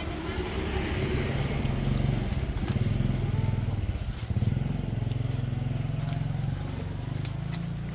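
A motor vehicle's engine running nearby: a low, steady drone that swells a little in level partway through.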